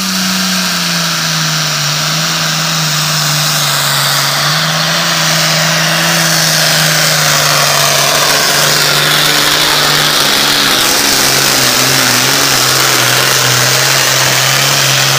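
A Super Farm class pulling tractor's turbocharged diesel engine at full throttle, pulling a weight-transfer sled down the track. The engine note drops a little just after the start as the load comes on, then holds loud and steady, sagging slightly further as the pull goes on.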